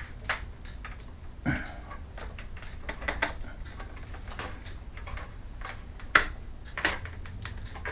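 Irregular clicks and knocks as the front panel of a computer case is handled and pulled open, over a low steady hum.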